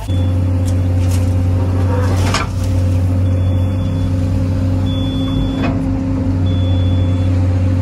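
Komatsu PC210 hydraulic excavator's diesel engine heard from inside the cab. It rises sharply at the start, then runs steadily under load as the boom and bucket are worked. Two brief knocks come about two and a half and five and a half seconds in.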